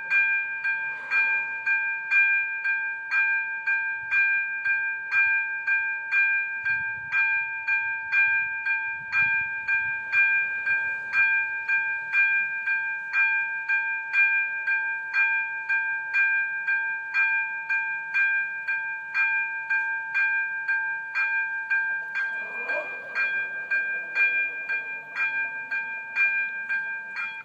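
Railway level-crossing warning bell ringing in an even rhythm of about two strikes a second, each strike a bright bell-like tone. It rings with the flashing red lights to warn of an approaching train and cuts off suddenly as the barrier arms come down.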